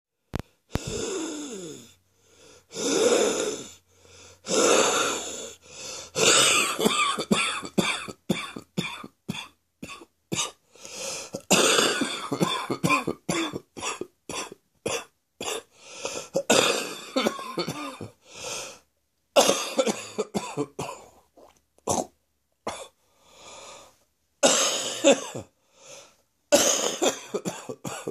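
A person's chesty morning cough: repeated bouts of harsh coughs, some in quick runs, with wheezing breaths and throat clearing between them.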